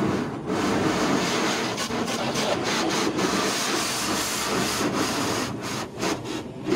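High-pressure car-wash water spray beating on a car's body, a steady hissing rush that breaks up briefly near the end.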